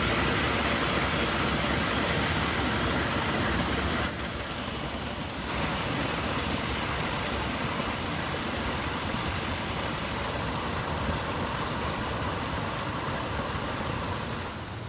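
Steady rushing hiss of a man-made geyser's water jet erupting, as the column of water dies down.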